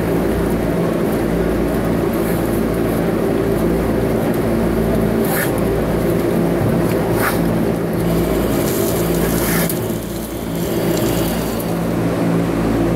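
Steady low mechanical drone, with two brief knocks about five and seven seconds in.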